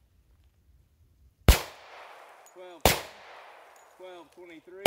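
Three 10mm pistol shots from a Glock 40 with a 6.5-inch KKM barrel, the first about a second and a half in, the second just over a second later and the last right at the end. Each is a sharp crack with a short echoing tail.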